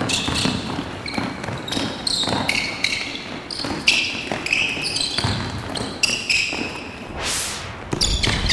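A basketball bouncing and players' sneakers squeaking in short high chirps on a hardwood court, with scattered footfalls. A brief whoosh comes about seven seconds in.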